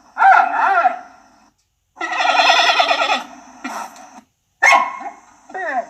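Giant panda bleating: several short, wavering pitched calls, separated by abrupt silent cuts.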